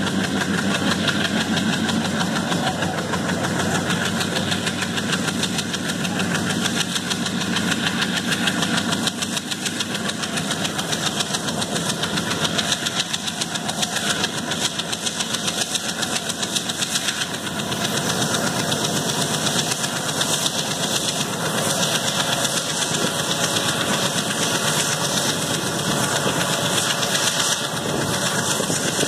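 Diesel locomotive engine running hard under power at the head of a moving train, with a fast, even beat, heard together with the train's running noise from an open coach door.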